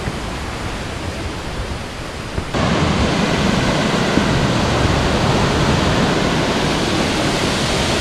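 Steady rush of running water, stepping abruptly louder about two and a half seconds in to the fuller, steady rush of a waterfall.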